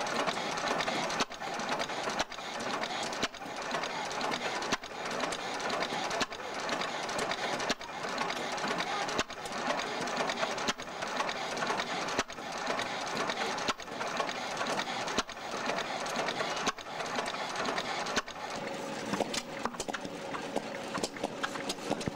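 1919 Hercules 7 HP kerosene stationary engine running: a steady mechanical clatter that drops briefly about every one and a half seconds. A faint steady hum joins near the end.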